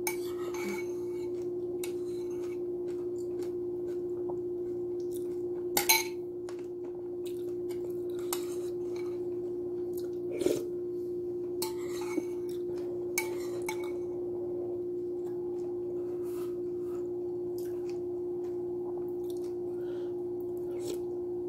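Dishes and cutlery clinking and knocking now and then during kitchen work, the loudest knocks about six and ten seconds in, over a steady low electrical hum.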